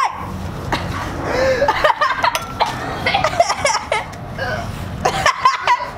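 Boys laughing, and a boy coughing and gagging on onion powder that has just been thrown over him.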